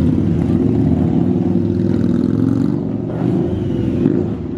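Several motorcycle engines running as the bikes ride slowly past in a line, a steady low rumble, with one engine revving up about three seconds in.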